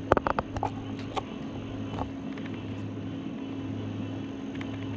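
A steady low mechanical hum with a quick run of sharp clicks in the first second and a few single clicks later.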